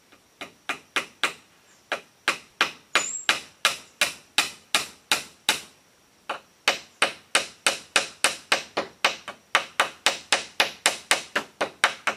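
Steady hand-hammer blows, about three a second, on split-bamboo roofing being fastened to a hut's pole frame, with a short pause about six seconds in.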